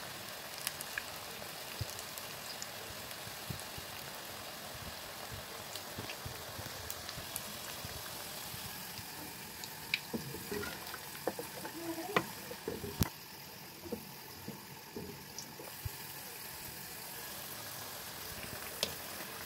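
Pakoras deep-frying in hot oil, a steady sizzle. For a few seconds in the middle it gives way to a pot of kadhi being stirred, with several clinks of the metal utensil.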